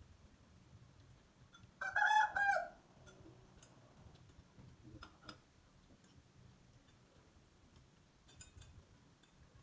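A rooster gives one short, pitched call about two seconds in, lasting under a second. Faint clicks of chopsticks and spoons on bowls follow.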